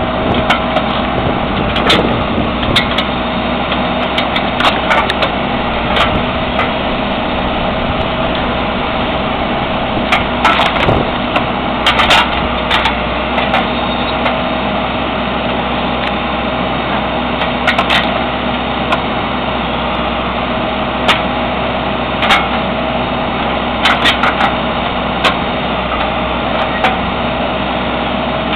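Backhoe engine running steadily as it powers a hydraulic wood splitter, with frequent sharp cracks and knocks of wood being split.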